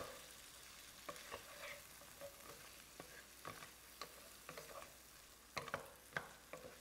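Wooden spatula stirring and scraping shrimp, tempeh and tofu in a stone-coated frying pan, with faint sizzling under scattered light taps. A cluster of louder knocks comes about five and a half seconds in.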